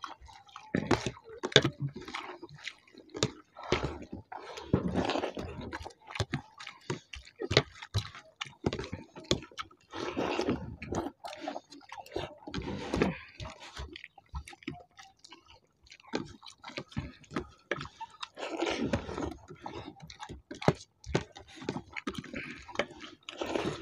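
Two people eating rice and vegetable curry by hand: wet chewing and mouth sounds, with fingers squishing and mixing the rice in foil trays, coming in irregular clicks and short bursts.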